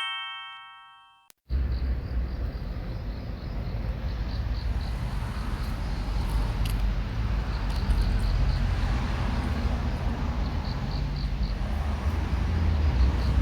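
A short bell-like chime fades out within the first second, then outdoor background noise: a heavy low rumble with short runs of faint, high chirping blips.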